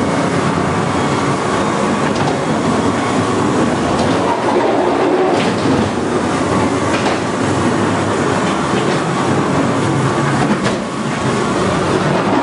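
Ghost-train ride car running along its track with a steady clatter, and a few sharp clicks partway through.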